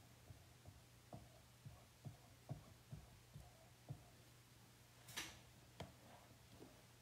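Faint soft taps about twice a second, then a short scrape about five seconds in: a squeegee working chalk paste across a silkscreen transfer on a chalkboard.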